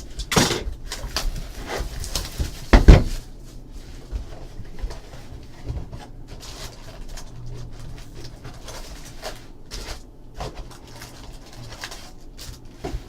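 A second sealed trading-card hobby box being opened and handled on a table: two sharp knocks, about half a second and about three seconds in, then a run of faint small clicks and handling noises.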